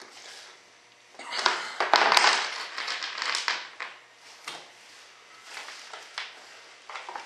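Hands handling small bolts and tools on a workbench: scattered clicks and clatter, with a louder stretch of scraping and rustling between about one and four seconds in.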